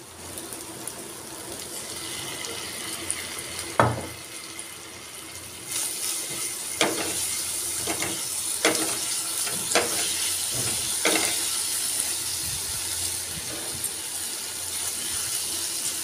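Chicken pieces in hot chilli sauce sizzling in a nonstick frying pan, growing louder about six seconds in. A spatula scrapes and knocks against the pan about once a second.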